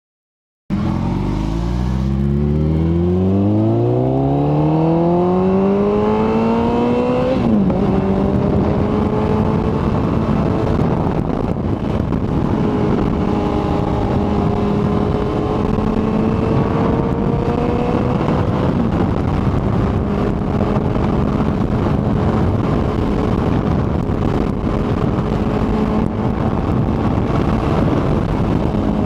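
Kawasaki ZX-14R motorcycle's inline-four engine pulling hard, its pitch rising steadily for several seconds, dropping at an upshift about seven seconds in, then running at a steady cruise with wind rushing past.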